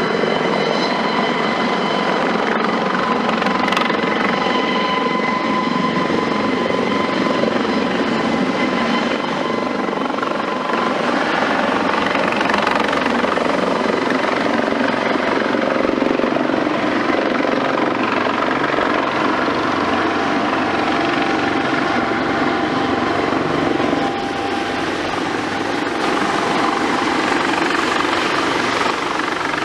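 Eurocopter AS365 Dauphin twin-turboshaft helicopter running steadily: a dense rush of rotor noise with a thin, steady turbine whine over it.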